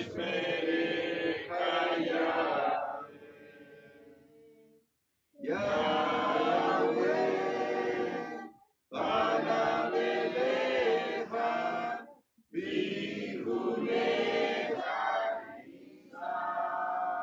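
Congregation singing a chant together, unaccompanied, in four long phrases with short breaks between them. The last phrase ends on a held note.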